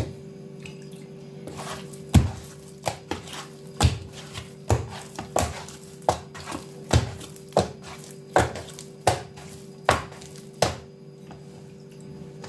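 Soft sfenj yeast dough being beaten by hand: lifted and slapped down into a woven wooden bowl again and again, a little more than once a second. The slaps start about two seconds in and stop shortly before the end, over a faint steady hum.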